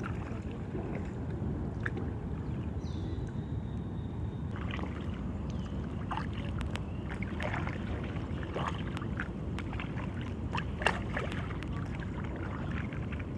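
Kayak paddling on water: a steady low rush of water, with irregular splashes and drips from the paddle blades starting a few seconds in.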